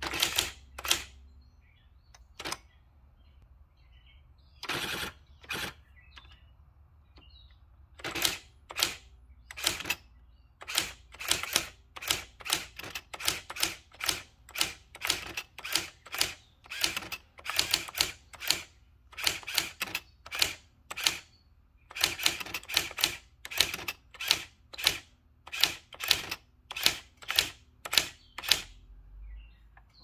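AT&T 6400 electric typewriter typing a line of text: sharp clacking strikes, a few scattered at first with one longer half-second mechanical sound about five seconds in, then a steady run of about two strikes a second from about eight seconds in, over a faint steady hum from the running machine.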